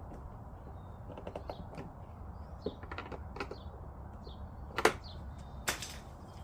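Scattered clicks and knocks of hard plastic parts being handled and fitted together, with two sharper knocks near the end. Birds chirp now and then in the background.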